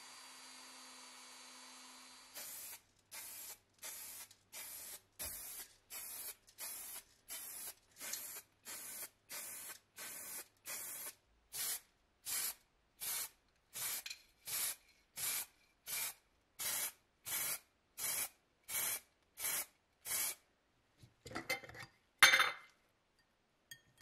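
A rotary tool hums steadily for the first two seconds. Then spray paint hisses out in over two dozen short, evenly spaced bursts, about three every two seconds. Near the end come a few clicks and one loud, short rush of noise.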